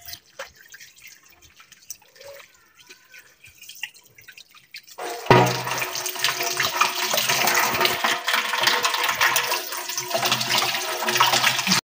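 Tap water running into a steel sink while raw chicken pieces are rinsed by hand in a steel bowl. It is soft splashing for the first five seconds or so. Then the water runs loud and steady, and it cuts off suddenly near the end.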